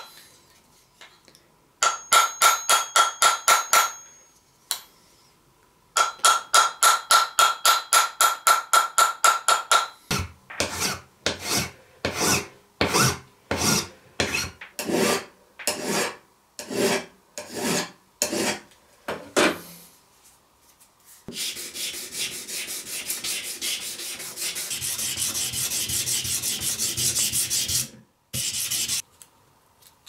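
Small hammer tapping quickly on a pocket knife lying on a steel anvil, peening its pins, in two runs of ringing taps. Then hand-worked rubbing strokes on the knife, about one a second, and near the end a steady rubbing.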